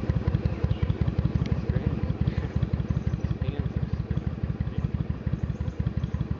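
A vehicle engine idling close by, a loud, even low throb.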